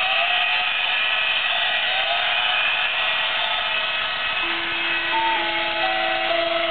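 Small electric motors of an animated Christmas window display and its model train whirring steadily. A simple tinny electronic melody joins about halfway, stepping notes over one held low note.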